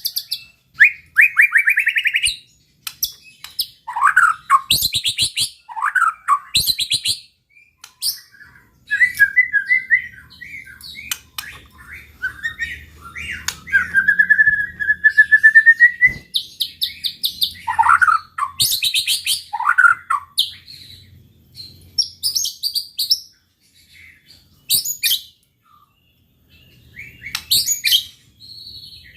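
White-rumped shama (murai batu) singing in varied phrases with short pauses between them: rapid high trills, falling whistled notes, and a long rising whistle about halfway through.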